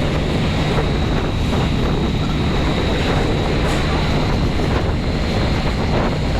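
Wind buffeting the microphone in a steady low rumble, over the wash of surf.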